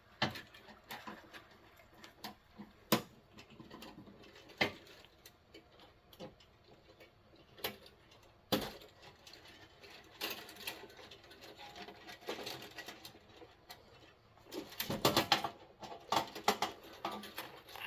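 Scattered small clicks and taps of hand work on wiring, as wires are being disconnected from a fire alarm annunciator's terminals; the clicks come singly a few seconds apart, then in a busier run about fifteen seconds in.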